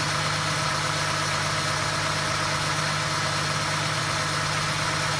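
Ford Transit 2.0i DOHC petrol four-cylinder engine (NSF/NSG/NSH) idling steadily, with an even, unchanging hum.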